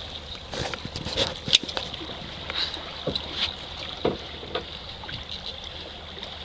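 Scattered sharp clicks and knocks of a tope being handled and unhooked, about ten in all, the loudest about a second and a half in, over the steady low hum of the boat.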